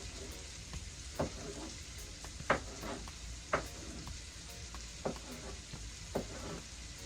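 Onion, garlic, peppers and tomato sizzling steadily as they fry in a Dutch pot, while a stirring utensil scrapes through them and knocks against the pot about five times.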